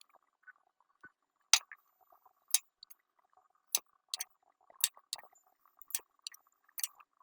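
Irregular light metallic clicks and ticks, about a dozen, as forceps and a pick tap against pieces of bicycle chain and small bits of silver solder while they are set in place at the joints.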